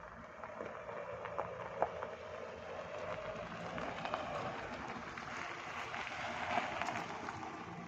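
Fiat Stilo driving slowly and braking: engine and tyre noise with a few light clicks. No squeal or grinding comes from the freshly serviced brakes, a sign the brake noise is cured.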